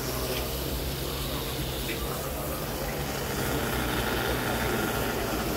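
Steam locomotive standing in steam: a steady hiss with a low, even hum underneath.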